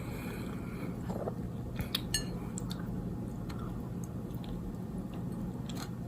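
Close-up chewing of a soft cinnamon roll, with a cluster of sharp wet mouth clicks about two seconds in and fainter clicks after. A steady low hum runs underneath.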